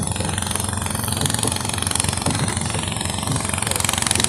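Small boat engine idling steadily, with a fast even pulse.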